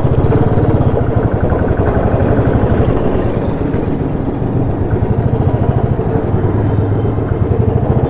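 Motorcycle engine running at low speed with a fast, even pulsing, heard from on the bike itself.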